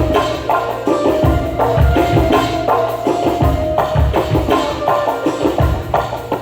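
A band playing at a sound check: a steady beat of low drum strokes with sharp, wood-block-like hits over a held melody line.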